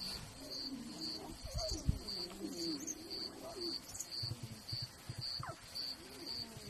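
Lion cubs giving soft, wavering calls, many short calls overlapping. A high, even chirp repeats about twice a second behind them.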